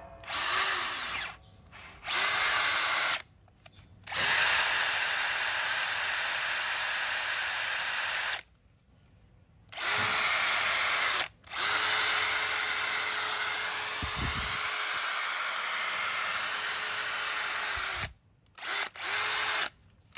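Bosch HDH181 18V brushed cordless hammer drill/driver running free with no bit or load, worked in repeated trigger pulls. There are several short bursts and two longer runs of several seconds, each with a steady high motor whine that winds up at the start and spins down when the trigger is released.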